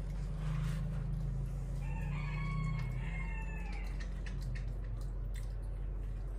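A drawn-out animal call with a pitch that wavers, lasting about a second and a half and starting about two seconds in. Under it runs a steady low hum, with faint clicks.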